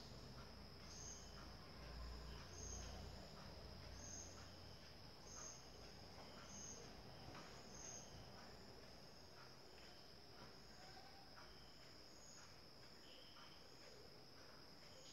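Near silence with faint insect chirping: a short high chirp repeating evenly, about three every two seconds, over a steady high drone, the chirps growing fainter in the second half.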